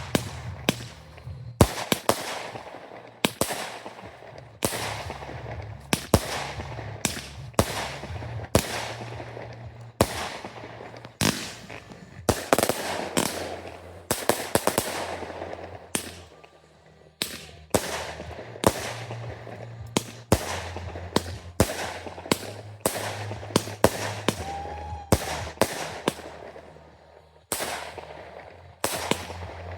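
Fireworks display: aerial shells bursting one after another, a sharp bang about every second, each trailing off before the next, with a short lull about halfway through.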